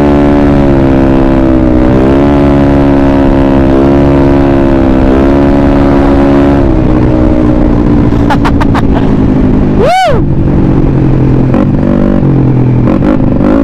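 175cc Yamaha Mio Sporty scooter engine running at steady high revs under way, its note wavering slightly, then dropping to a lower note about six and a half seconds in. About ten seconds in, a short tone rises and falls sharply over it.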